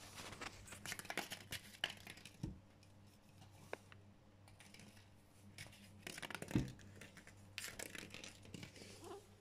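A crumpled aluminium-foil ball crinkling and skittering on a wooden floor as a kitten bats it with its paws. The rustling comes in three bursts of quick crackles, with two soft thumps, one about two and a half seconds in and one past the middle.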